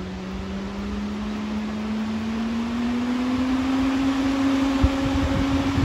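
A Camaro SS brushless outrunner radiator cooling fan running under PWM control and speeding up, its hum rising steadily in pitch and growing louder. A few low thumps come near the end.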